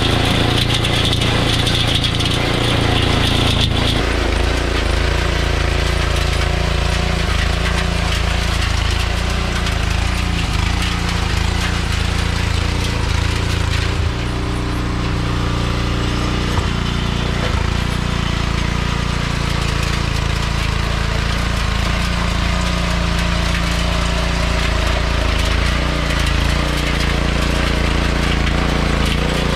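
Troy-Bilt Pony rear-tine tiller's 5 hp Briggs & Stratton single-cylinder engine running steadily under load as the tines churn soil. It keeps running on its own now that the clogged carburetor main jet has been cleaned out. A high hiss sits over the first few seconds.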